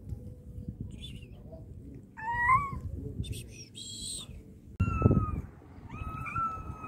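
Cats meowing: a short rising meow about two seconds in, then two longer, drawn-out, steady-pitched calls in the second half.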